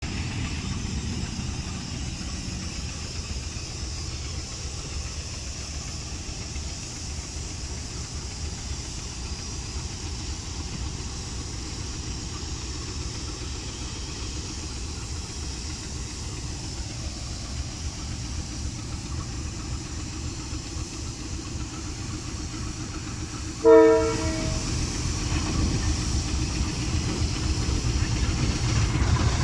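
Diesel locomotives idling with a steady low rumble. About 24 s in a short horn blast sounds, and after it the engine rumble grows louder.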